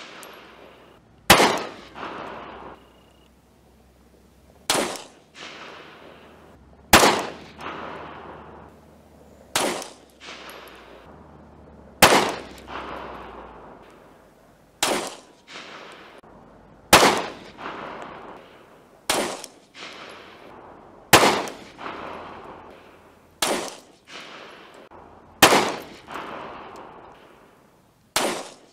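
Glock 43 9mm pistol firing Underwood 105-grain Maximum Expansion rounds: a string of about a dozen single shots, roughly one every two seconds, each trailing off in an echo.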